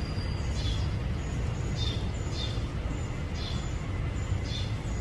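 Short high chirps of a small bird, repeating about once or twice a second, often in pairs. They sound over a steady low rumble.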